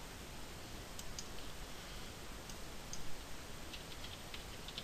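A few faint, scattered clicks of a computer mouse and keyboard as settings are entered, over a steady low hiss.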